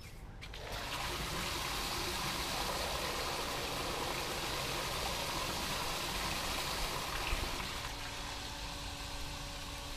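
Water gushing steadily from a tap just opened on the outlet line of an electric water pressure pump, starting about half a second in. Near the end a faint steady hum comes through under the water.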